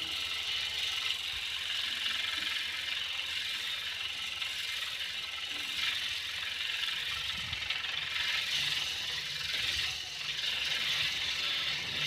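Corded angle grinder running and pressed against a rusty louvered steel panel, scraping off rust in a steady, unbroken noise.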